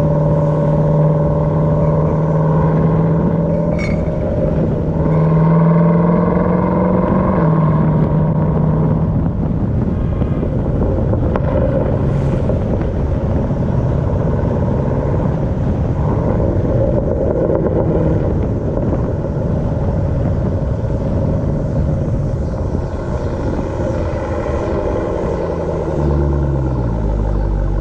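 Supercharged 6.2-litre V8 of a 2018 Jeep Trackhawk running while under way. A steady, even engine note for the first nine seconds or so gives way to a rougher, noisier drone.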